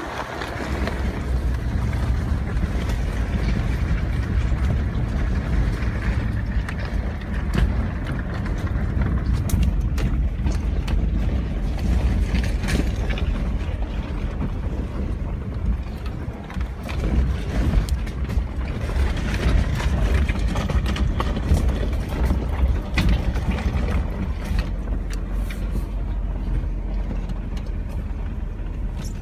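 A 4x4 driving slowly over a gravel and rock track, heard from inside the cab: a steady low rumble from the engine and tyres, with scattered clicks and knocks from stones and bumps.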